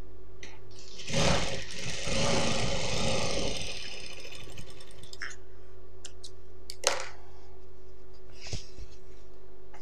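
Industrial sewing machine running in one burst of about two and a half seconds, starting about a second in, as it stitches a seam joining two pieces of cloth. After it come a few light clicks, one sharp click near the middle, over a steady low hum.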